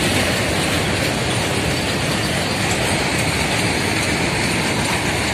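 Freight train of covered goods wagons rolling past: a steady, loud rumble and rattle of wagon wheels running on the rails.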